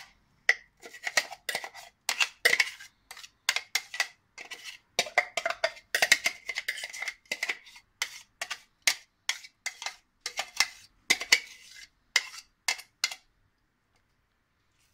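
Metal spoon scraping and knocking blended onion out of a clear jug into a glass mixing bowl: a quick, irregular run of clinks and scrapes with a light ring, stopping near the end.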